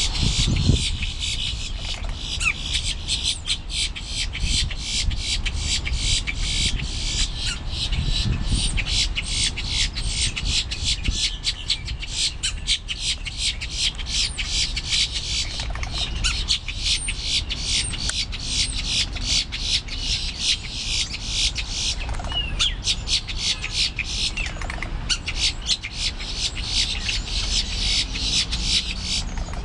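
Boat-tailed grackles calling, short gliding squeals every few seconds, over a steady, rapid, even pulsing chorus that runs throughout.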